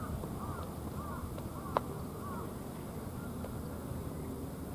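Crows cawing repeatedly in short arched calls, about one every half second, over steady outdoor background noise. A single sharp pop cuts in a little under two seconds in.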